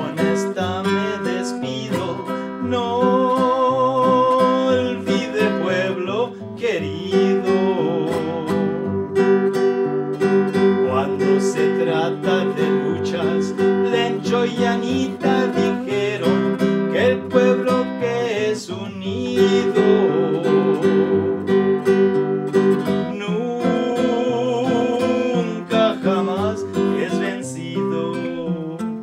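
Nylon-string classical guitar playing an instrumental passage of a corrido, strummed and picked chords in a steady rhythm.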